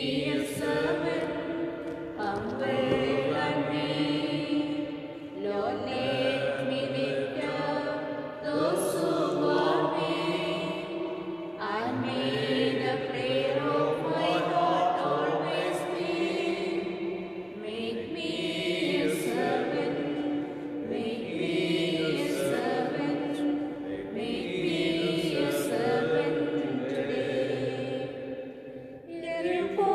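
A slow hymn sung in long, held phrases of a few seconds each, with brief pauses between them, in the manner of a chant.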